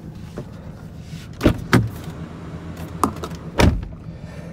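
Door locks and switches of a 2018 Jaguar XF clicking and clunking, four sharp clacks in two pairs, over a steady low hum in the cabin.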